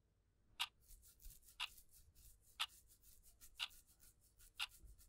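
Clock ticking steadily, one tick a second, with a few fainter clicks in between.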